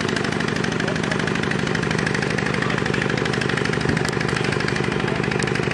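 Vehicle engine idling steadily at an even, unchanging pitch.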